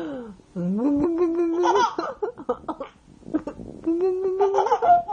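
An infant laughing in short repeated bursts, with several longer held pitched sounds in between.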